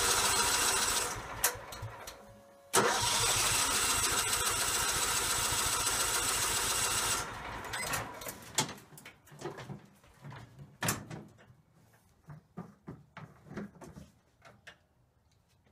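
John Deere L110's Kohler engine cranked by the electric starter twice, a few seconds each time, without catching: its mechanical fuel pump is delivering no fuel. A few scattered knocks and clunks follow once the cranking stops.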